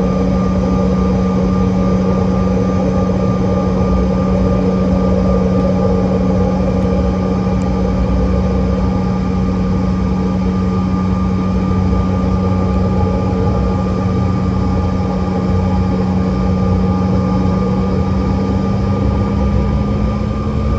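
Cabin sound of a CRJ-700 with its rear-mounted GE CF34 turbofans running steadily at low power: a loud, even hum with a steady whine above it. Near the end the pitch begins to rise as the engines start to spool up for takeoff.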